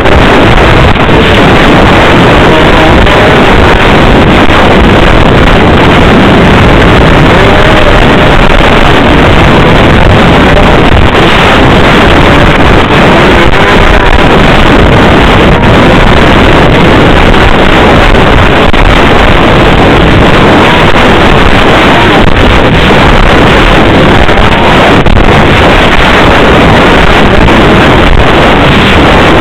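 Snowmobile engine running steadily under way, mixed with wind noise on the microphone; loud.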